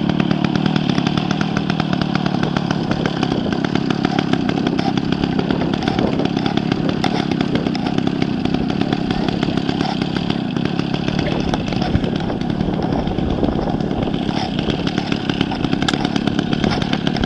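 Petrol engine of a large radio-controlled model airplane running steadily while the plane sits and taxis on the ground.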